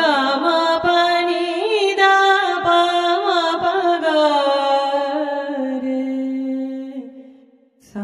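A woman's voice singing one long wordless note, with small ornamental turns in pitch; the note sinks lower partway through and fades out near the end.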